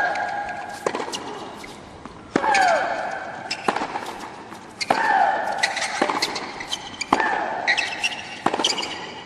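Tennis rally: the ball cracks off the rackets about every second and a quarter. Every other stroke carries a long shriek that falls in pitch, and the strokes between carry shorter, higher grunts.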